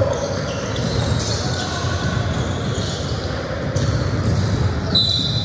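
Scattered thumps and knocks over a steady background din in a large, echoing room, with a brief high squeak about five seconds in.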